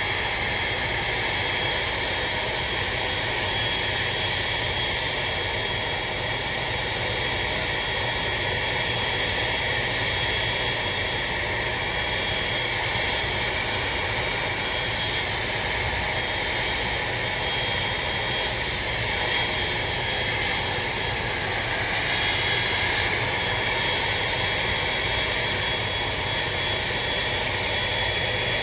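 Parked Boeing 737-800 jet airliner running steadily at the gate: a constant rumble and hiss with a thin, steady high tone.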